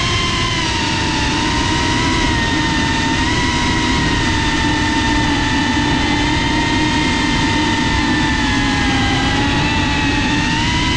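FPV racing quadcopter's brushless motors and propellers whining as it flies, heard from the onboard GoPro with a steady rush of air noise. The pitch wavers with the throttle and rises briefly near the end.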